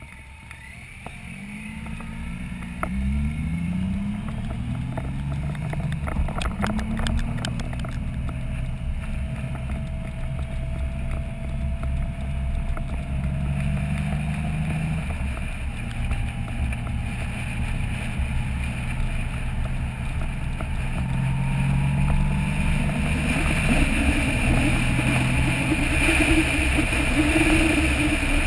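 Touring motorcycle engine pulling away and shifting up, its pitch rising in several steps over the first few seconds, then cruising steadily. Wind rush grows louder near the end as speed builds.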